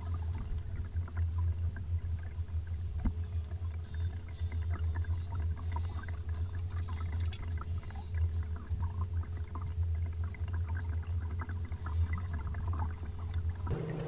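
Steady low hum of a Torqeedo Travel electric outboard motor pushing a small dinghy at trolling speed, with faint ticks of water against the hull. The hum cuts off near the end.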